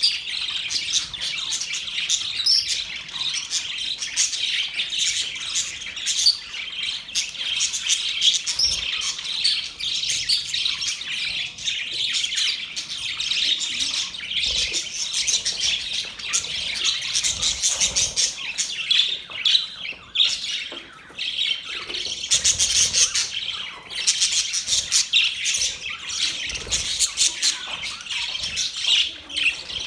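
Many small birds chirping and chattering at once, a dense unbroken chorus of high chirps.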